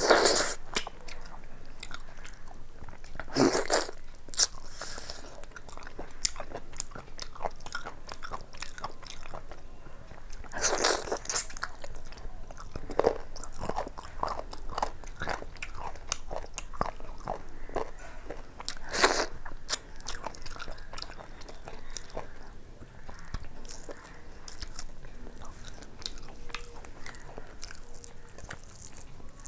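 Close-up eating sounds: a person chewing mouthfuls of fried rice and chicken curry, with irregular wet chewing clicks and a few louder crunching bites, the loudest right at the start and again about 3.5, 11 and 19 seconds in.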